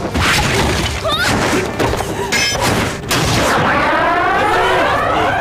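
Martial-arts fight sound effects: a dense run of thuds and crashes, then from about three seconds in a loud, wailing whoosh of several pitches rising together.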